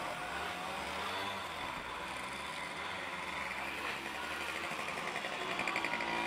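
Motorcycle engines running as bikes ride along a snowy road, with a buzzing engine note growing louder near the end.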